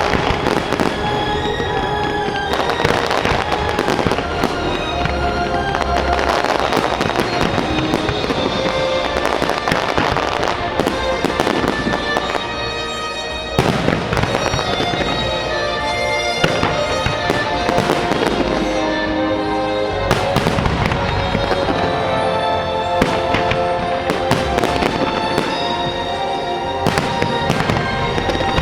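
Fireworks bursting in rapid succession, sharp bangs and crackling, over the show's orchestral music. The bangs briefly thin out about halfway through, then come back with a sharp bang.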